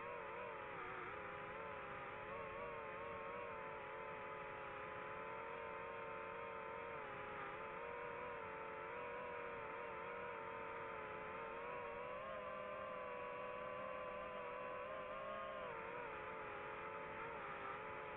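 Multirotor drone's propellers whining steadily, the pitch wavering up and down as the motors change speed.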